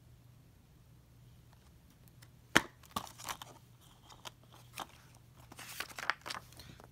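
Plastic Blu-ray case being handled and opened: a sharp snap about two and a half seconds in, a few smaller clicks after it, then the paper insert rustling as it is pulled out near the end.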